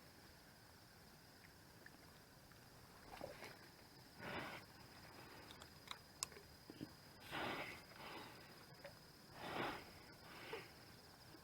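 Quiet outdoor near-silence with several soft breaths or sniffs close to the microphone, a few seconds apart, over a steady faint high-pitched tone and a few light clicks.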